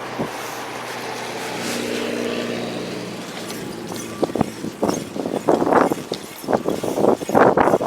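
Wind buffeting the microphone of a moving bicycle rider in irregular, loud gusts that start about four seconds in. Before that there is a steady hum and a hiss of air.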